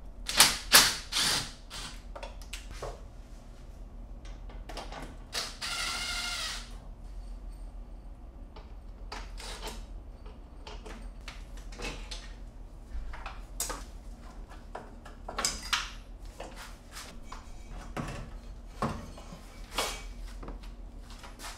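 Mechanic's handling noises while removing a front-mount intercooler and its aluminium charge piping: scattered clicks, knocks and tool clatter, with a brief high whine about six seconds in.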